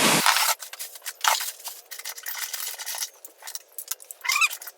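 Metal hand tools clinking and rattling in irregular sharp clicks: steel sockets being picked through and tried to find the size for the clutch lock nut.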